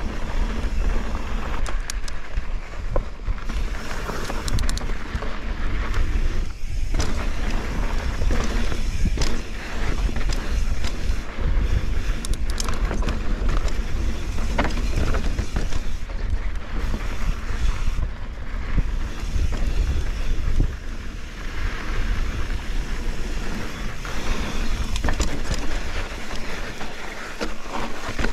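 Mountain bike riding fast down a rough dirt-and-rock trail: knobby tyres grinding over dirt and rock, with the bike rattling and knocking over bumps, under steady wind rumble on the microphone.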